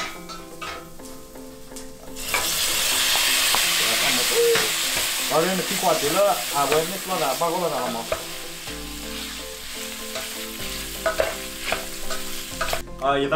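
Pieces of pork tipped into hot oil in a stainless steel pan, setting off a sudden loud sizzle about two seconds in. The pork keeps frying and sizzling more softly as a spatula stirs and scrapes it around the pan.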